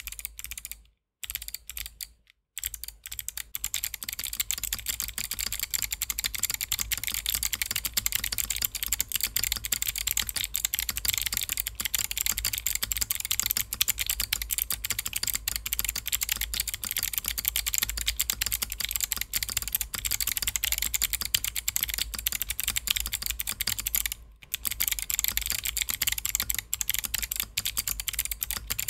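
Typing on a mechanical keyboard with Kailh Autumn clicky switches: a dense run of crisp, sharp clicks, the switches' click bar clicking on both the press and the release. After a few separate keystrokes with short pauses near the start, the typing runs on fast, with one brief break about three quarters of the way through.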